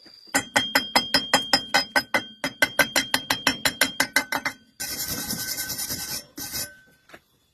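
Hammer rapidly striking steel, about seven blows a second with a metallic ring and a short pause partway, then a second or so of loud hissing near the end.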